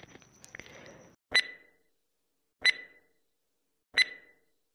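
Countdown timer sound effect: three short, sharp ticks with a brief ring, evenly spaced about one and a third seconds apart.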